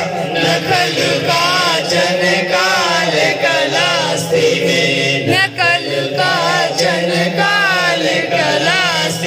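Devotional singing of a Sanskrit hymn to the goddess, in a wavering, ornamented melody over a steady low drone.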